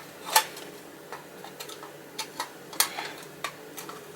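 Irregular light clicks and taps of tinplate toy-car parts knocking together as the roof of a Bandai tin Rolls-Royce Silver Cloud is worked into place. The sharpest clicks come about half a second and nearly three seconds in.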